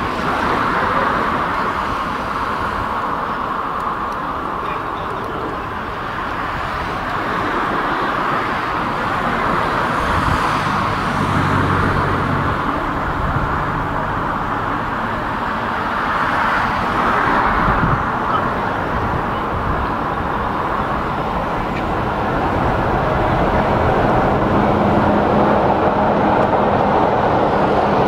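Diesel locomotive D123, a BR Class 45 'Peak', approaching: a steady engine noise that swells and eases, then grows louder with a clearer steady hum over the last few seconds as the locomotive draws near.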